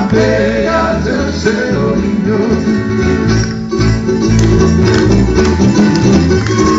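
Music with strummed plucked-string instruments and a singing voice, which is clearest in the first couple of seconds.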